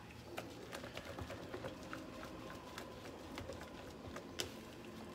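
Hand wire whisk beating thick pancake batter in a mixing bowl: quick, irregular clicks and taps of the whisk against the bowl, with one louder knock about four seconds in.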